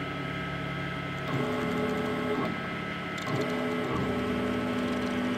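Servo motor of a CNC router's rotary 4th axis, wired to the X-axis driver, turning the chuck through its reduction gearbox as it is jogged: a steady motor whine that ramps up in pitch at each start, running twice, about a second and a half in and again past three seconds.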